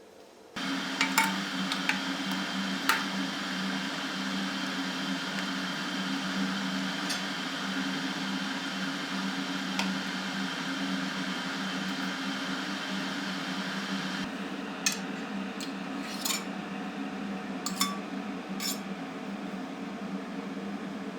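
A kitchen appliance motor switches on about half a second in and runs steadily with a low hum and a hiss above it. The hiss eases about two-thirds of the way through while the hum carries on. A few light clinks of dishes or utensils fall on top.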